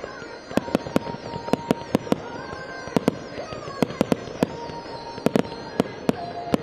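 Fireworks going off in a rapid, irregular series of sharp bangs, about three a second, some in quick clusters of two or three.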